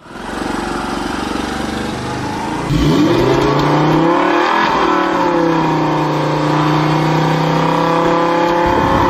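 Recorded car engine sound effect, revving with the pitch rising a couple of seconds in, then running steadily at higher revs until it cuts off suddenly.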